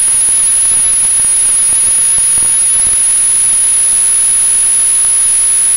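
Steady electronic hiss, like static, with a thin, constant high-pitched tone above it: the noise of the audio system with no speech or film sound playing.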